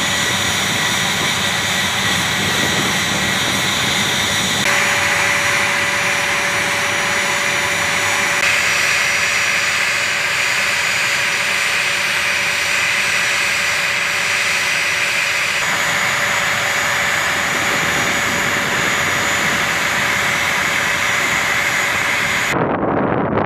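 A-10 Thunderbolt II's twin turbofan engines running on the ground: a loud, steady rushing noise with a high whine, its tone shifting abruptly a few times.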